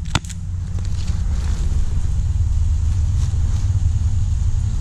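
Steady low rumble of wind and handling noise on a body-mounted action camera's microphone, with a few sharp crackles of dry leaves right at the start.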